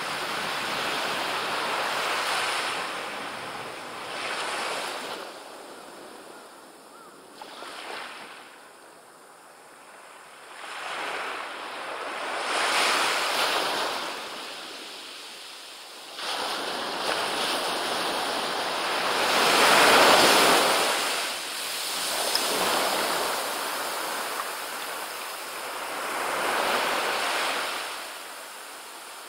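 Small ocean waves breaking and washing up a sandy beach, each wash swelling and fading every few seconds, loudest about two-thirds of the way in.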